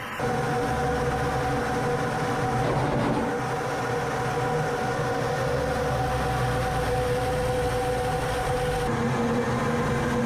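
Steady engine drone and airflow rush inside the cockpit of a Su-25 attack jet in low-level flight, with a steady whine over a dense rumble; the engine tone shifts about nine seconds in.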